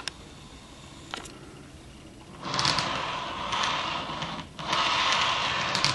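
Handling noise: two small clicks, then from about two and a half seconds in a loud, rough rustling scrape with a brief break in the middle, as the camera is moved and repositioned.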